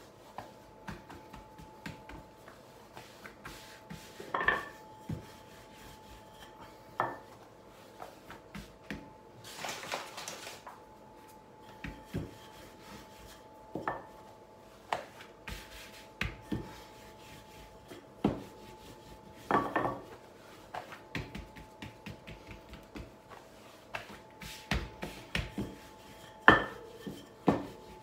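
Hands working pizza dough on a floured countertop and a wooden rolling pin rolling it out: soft rubbing and patting broken by scattered sharp knocks as the pin and dough are set down on the counter. A faint steady hum runs underneath.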